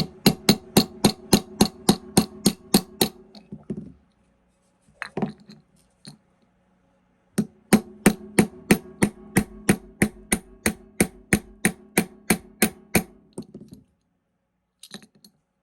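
Light, rapid hammer taps driving the steel firing-pin retaining pin into a Remington 870 shotgun bolt, about three to four taps a second. A run of about fourteen taps stops near four seconds in, a single tap follows, then a second run of about twenty taps and two faint ones near the end.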